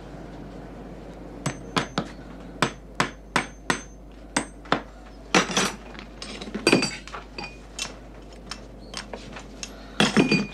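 Small shoemaker's hammer tapping tacks through a leather insole into a shoe last: about nine sharp, quick taps over three seconds, then a denser run of knocks and some lighter scattered taps, with a short clatter near the end.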